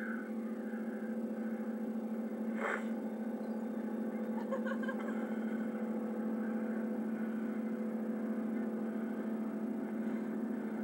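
A steady, even motor hum with a fixed pitch, with one short sharp sound about a quarter of the way in.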